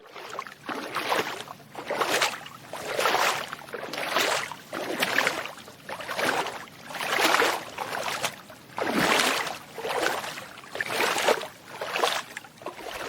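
Footsteps wading through shallow water, one splashing, sloshing step about every second at a slow walking pace.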